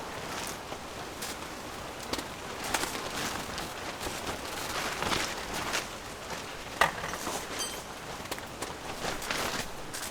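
Eel sizzling on a camping grill: a steady hiss with scattered crackles and pops.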